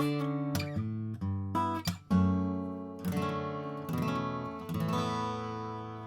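2001 Gibson J-45 acoustic guitar strummed: a run of chords with a hard strum about two seconds in, and the last chords left ringing and fading near the end.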